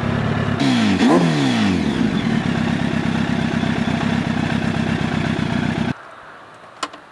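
Sportbike engine running through a MIVV aftermarket silencer, with a quick blip of the throttle about a second in, then running steadily. The engine sound cuts off suddenly about six seconds in, leaving a much quieter background with a few faint clicks.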